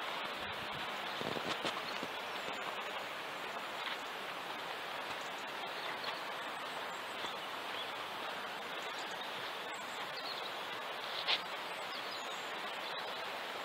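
Steady rush of a river on a rocky canyon floor, an even noise without lulls, with a few faint ticks.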